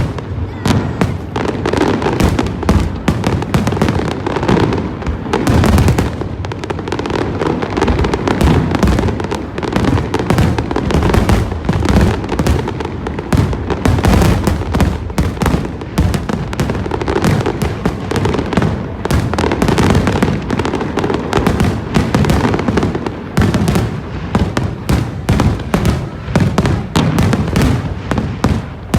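Fireworks display in a dense, continuous barrage: rapid overlapping bangs and booms with crackling, and no real pause.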